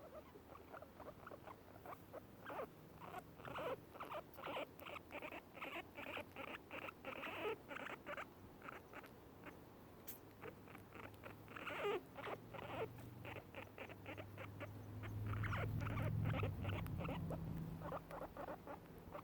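Guinea pigs eating grass: quick repeated crunchy chewing clicks, several a second, along with the guinea pigs' soft contented happy sound. A low steady hum swells for a couple of seconds about three-quarters of the way through.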